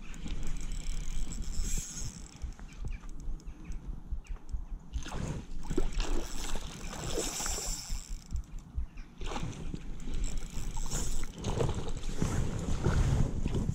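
Wind buffeting the microphone, with water splashing and sloshing as a hooked pike thrashes at the surface close to the bank.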